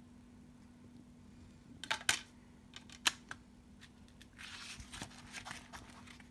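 A CD pressed onto the hub of a plastic CD tray: a pair of sharp plastic clicks about two seconds in and another about a second later. This is followed by a short rustle with small taps as the card case is folded shut.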